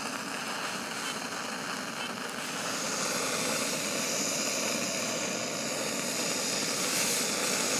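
Backpacking stove burner running with a steady rushing hiss, growing louder and brighter about two and a half seconds in.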